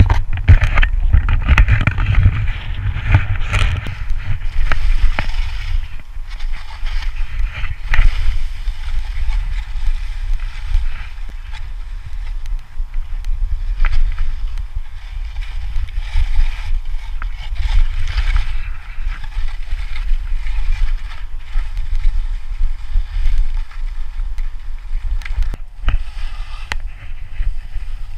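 Skis hissing and scraping over snow during a steep descent, under heavy, gusty wind rumble on the camera's microphone, with occasional short clicks.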